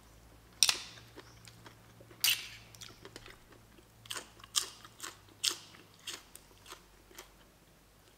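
Close-up chewing of crisp food: two sharp crunches about half a second and two seconds in, then bites into a raw green vegetable stem with a run of smaller crunches about twice a second from about four seconds in.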